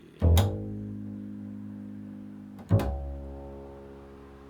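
Two low plucked string notes, about two and a half seconds apart, each with a sharp attack and then left to ring and slowly fade; the note is A, the tone named just before.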